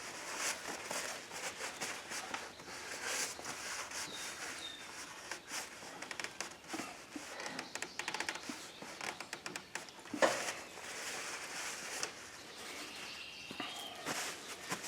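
Handling noises from a new oil filter being hand-tightened on a lawn mower engine: scattered clicks, scrapes and rustles, with a louder knock about ten seconds in. Faint bird chirps come through now and then.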